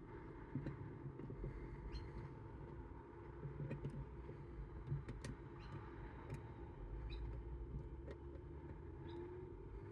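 Faint, scattered small metallic clicks and light scrapes of lock-picking tools working in a Chubb Detector lever lock, over a steady faint hum.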